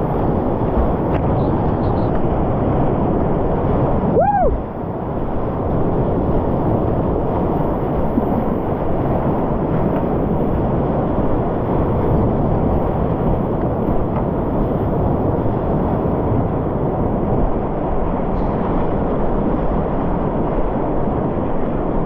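Whitewater rushing loudly and steadily around a kayak, picked up close by a head-mounted action camera. About four seconds in, a brief pitched sound rises and falls.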